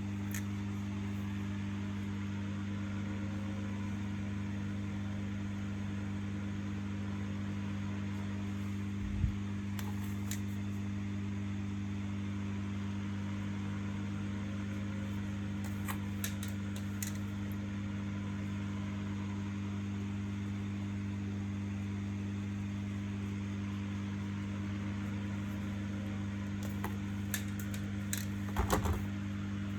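Steady low electrical hum, with a few small clicks and taps of handling about a third of the way in, midway, and a cluster near the end.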